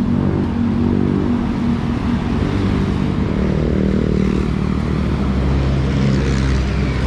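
Road traffic: car and motorcycle engines running past close by, a steady drone with one engine note swelling and fading near the middle.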